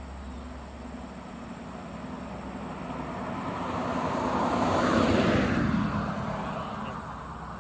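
A car passing by on the road, its noise growing steadily louder to a peak about five seconds in, then fading away.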